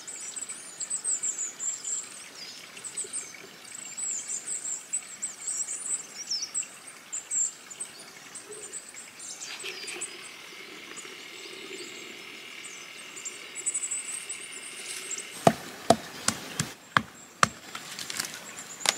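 Small songbirds chirping high and thin, with a steady high buzz in the middle stretch. In the last few seconds a series of sharp cracks and snaps as bark is wrenched and torn off a conifer trunk by hand.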